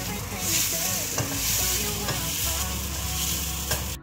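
Spice paste with lemongrass sizzling in a hot wok as it is stirred and scraped around with a silicone spatula.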